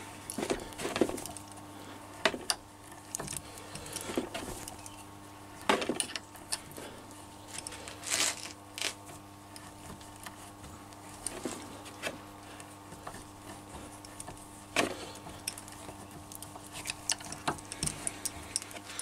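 Hand threading die in a die stock being turned on a 3/8-inch stud of tough EN16T steel held in a bench vise, giving irregular metal clicks, knocks and scrapes as the die cuts and the handles are reset. A steady low hum runs underneath.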